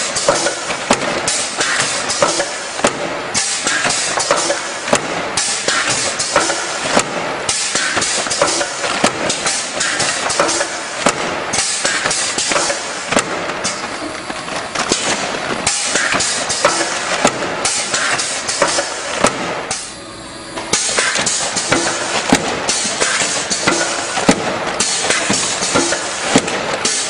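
Paper-sack packaging line machinery running with a dense clatter of knocks and clicks over steady mechanical noise; it drops off briefly about twenty seconds in, then resumes.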